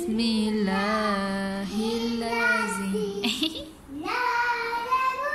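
A voice singing or vocalizing without words in long held notes: two held notes over the first three seconds, a brief break, then a rising note from about four seconds in.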